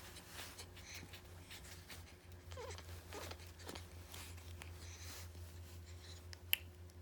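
A baby making a few small, soft squeaky whimpers while being rocked toward sleep, over a steady low hum. A single sharp click sounds near the end.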